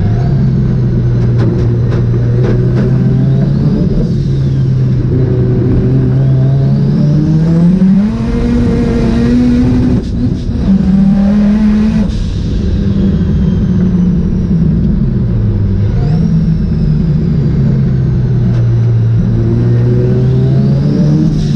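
Mazda RX-7 engine running hard, a steady note that climbs in pitch about seven seconds in, drops out briefly near ten seconds, picks up again, then falls away around fifteen seconds and holds steady. High whistles rise and fall above it several times.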